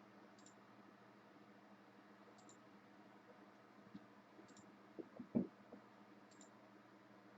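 Near silence, with a few faint computer mouse clicks, one about four seconds in and a small cluster about five seconds in.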